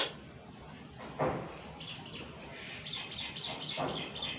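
Metal tools scraping and knocking against the rear shock absorber's preload adjuster as it is forced and fails to turn, loudest twice. A run of quick high chirps runs through the second half.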